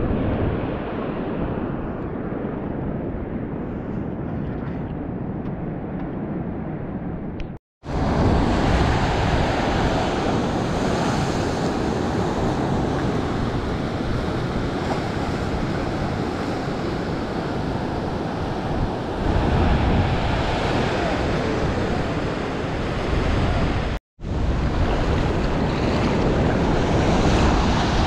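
Ocean surf washing and breaking, with wind buffeting the microphone. The sound drops out suddenly twice, briefly, at cuts.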